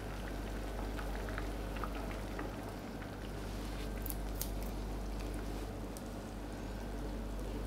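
Water with fruit peels and cores simmering in a pan over a gas burner, bubbling and popping softly, over a steady low hum. A few small sharp clicks come about four seconds in.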